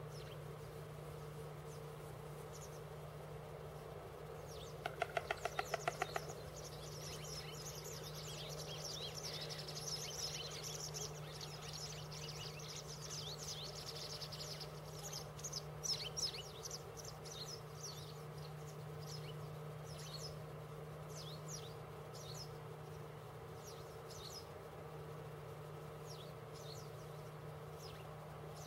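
Small birds chirping and twittering, heaviest in the middle, over a steady low hum. About five seconds in comes a short, fast rattle of about ten clicks, the loudest sound.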